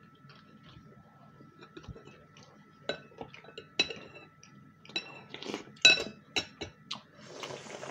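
A metal spoon clinking against a ceramic bowl as dumplings and broth are scooped up: a run of sharp, ringing clinks starting about three seconds in, the loudest near six seconds.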